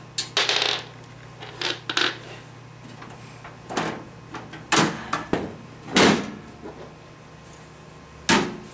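Metal side panel of a Cooler Master HAF 932 computer case being unfastened and lifted off by hand: a run of separate knocks, clunks and scrapes of sheet metal, the loudest around five and six seconds in, with another near the end.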